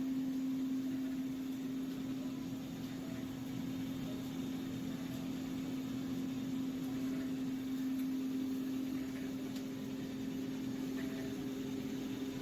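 Steam-operated mawa (khoya) making machine running: a steady mechanical hum with one constant low tone over an even hiss.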